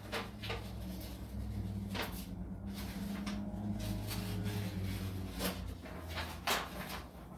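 Paper sheets being handled and pressed against a wall panel: a few scattered sharp taps and rustles over a steady low room hum.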